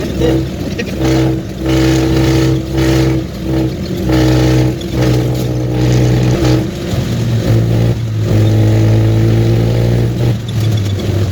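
Vehicle engine running on the move, its pitch holding and then stepping up and down as the engine speeds up and eases off, with a longer steady stretch near the end.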